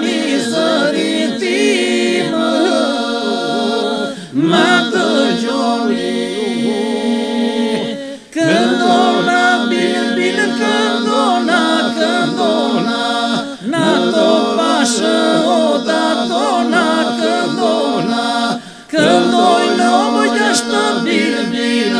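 Men's a cappella Albanian Lab iso-polyphonic singing: the group holds a steady drone while solo voices weave ornamented lines above it. It comes in phrases with four brief breath breaks, and cuts off at the end.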